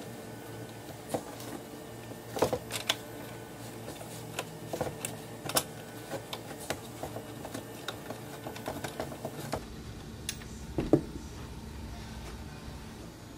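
Allen key turning a bolt into a crib's metal bracket: a run of small, irregular clicks and taps as the key is seated and turned. A louder knock comes about eleven seconds in.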